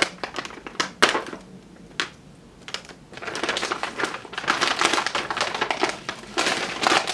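Plastic packaging crinkling and rustling by hand as a plastic mailer bag is torn open and the box inside is pulled out. There are sharp crackles about a second in, a short lull, then steady crinkling.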